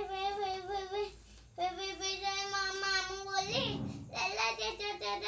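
A young boy singing in long held notes with a slight waver, pausing briefly between phrases, with a falling slide about three and a half seconds in.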